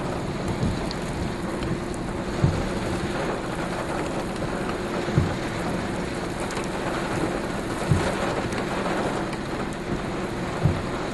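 Steady rush of rain and wind in a tornadic thunderstorm, with a faint steady hum and a dull low thump about every two and a half seconds.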